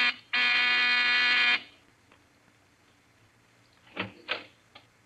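Electric buzzer sounding as a summons: the tail of one buzz, then a longer, steady buzz of a little over a second. Someone answers it with 'Yes?'. A few faint short sounds follow near the end.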